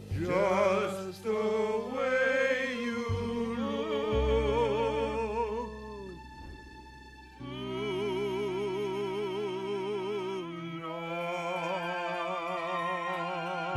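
A group of men singing together in close harmony over low bass notes. The voices move through a phrase, drop away briefly about halfway through, then swell into one long held chord with wide vibrato.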